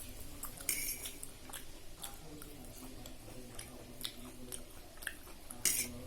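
Close-miked chewing of a mouthful of food, with small wet mouth smacks and clicks. Two short, louder hissing sounds come just under a second in and near the end.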